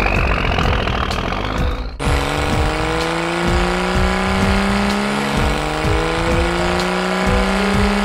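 Cartoon vehicle engine sound effects: a truck engine rumbling with a rising whine for about two seconds, then an abrupt switch to a different engine sound slowly rising in pitch as the asphalt paver drives in, over background music.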